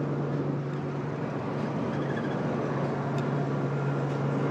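Cabin noise inside a passenger van on the road: a steady low engine hum over a constant rush of road and tyre noise.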